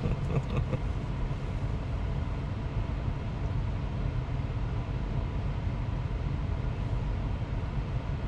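Steady background noise inside a Tesla's cabin in traffic: a low rumble with a faint hiss.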